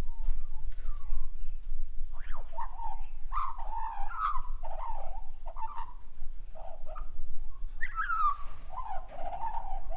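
Currawong calling: a run of gliding, warbling notes from about two seconds in, then another phrase near the end.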